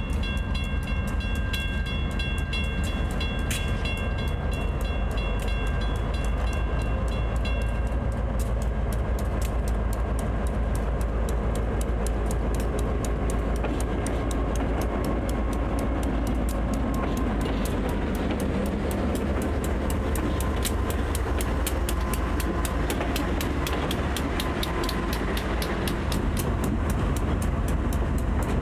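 A GE B39-8E and an EMD GP38 diesel locomotive backing up, their engines giving a steady low rumble throughout. A steady chord of high tones holds for about the first eight seconds, then a fast, even clicking comes in and runs on.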